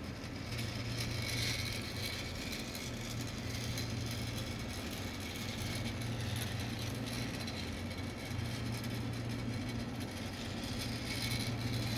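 Battery-powered Thomas and Friends toy train running along its track: a steady small-motor hum.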